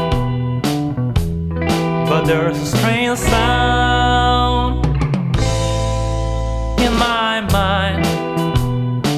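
Instrumental break of a blues-rock song: a lead guitar melody with held, wavering and bending notes over bass and a steady drum-kit beat, with a cymbal crash about five seconds in.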